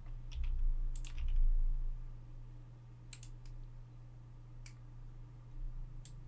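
Computer clicks, about eight short sharp ones scattered irregularly, over a steady low electrical hum.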